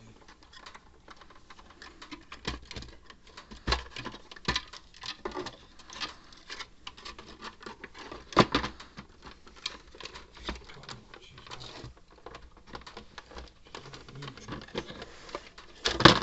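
Irregular light clicks and taps of small hard objects being handled, with a louder knock about eight seconds in and a sharp cluster of clicks near the end.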